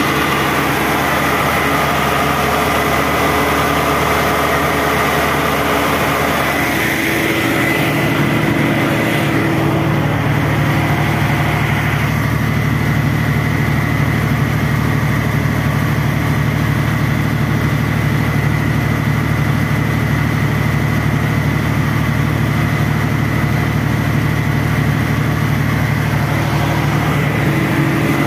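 Caterpillar diesel generator set running steadily at governed speed, its output meter reading about 50 Hz. It makes a deep, even drone with a faint steady high whine, and the drone grows fuller about seven seconds in.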